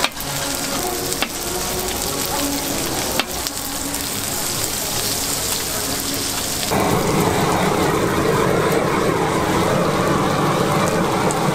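Beef intestines and garlic sizzling on a hot flat griddle, with a few sharp scrapes of a metal spatula. Near the end, the sound changes abruptly to a louder, deeper steady rush as a butane blowtorch flames the sauced intestines on the griddle.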